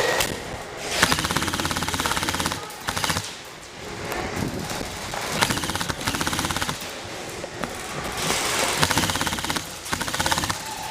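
Airsoft electric guns firing rapid full-auto bursts, several long strings of fast, even shots.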